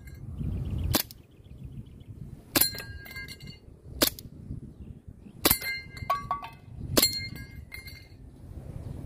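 WE M92 gas blowback airsoft pistol firing five single shots about a second and a half apart, each a sharp pop. Three of the shots are followed by a brief metallic ringing as BBs strike the steel plates of a spinning star target.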